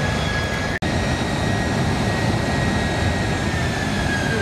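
Boeing 767 jet engines running on the ground during an engine run-up: a steady roar with a high whine that slides down in pitch over the last second. The sound cuts out for an instant a little under a second in.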